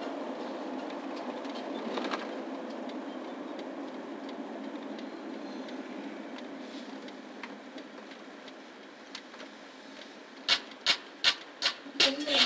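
Steady car-interior road noise that fades as the car slows to a stop. About ten seconds in, a run of sharp beats starts: music with a hip-hop beat beginning.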